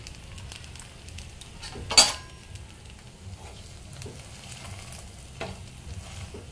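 Thin rice-flour crepe sizzling gently in an oiled pan, while a flat spatula scrapes and taps against the pan as the crepe is folded over its filling. A sharp metallic clank comes about two seconds in, with a smaller knock later.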